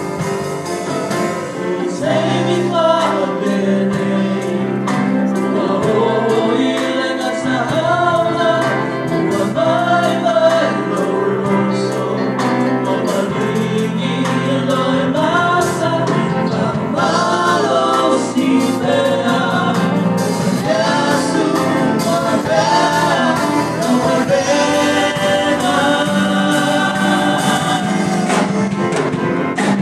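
A choir singing a gospel hymn in several voice parts, steady and full throughout.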